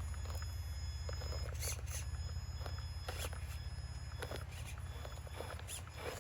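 Scale RC crawler truck creeping along, its electric motor and drivetrain giving a steady low hum with faint high whine, broken by scattered short squeaks and clicks.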